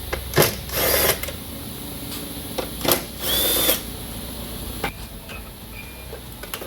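Cordless power driver whirring in two short bursts, backing out the screws that hold a plastic bumper panel, with a few sharp clicks between.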